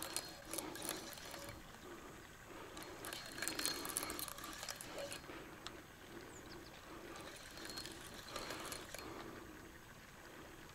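Fishing reel being wound in repeated turns, with mechanical clicking, as a heavy carp is played on the line.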